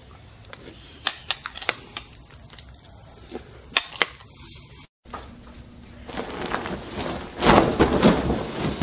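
A metal spoon clicking and tapping against a cereal bowl, a run of short sharp clicks. About five seconds in, this gives way to a louder, rising rustling noise with a few thumps.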